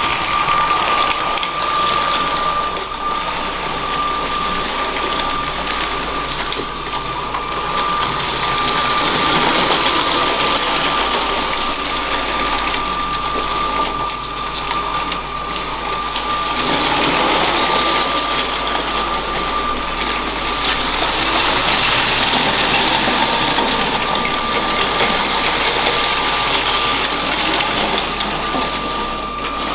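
LEGO train's small electric motor running with a steady high whine, its wheels rattling along plastic track. The running noise grows louder a little over halfway through.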